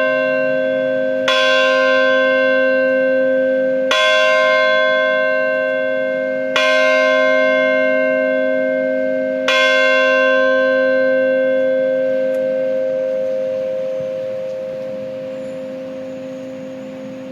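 A church bell tolling slowly for the dead, struck four times at the same pitch about every two and a half to three seconds, each stroke ringing on; after the fourth stroke it is left to hum and fade away.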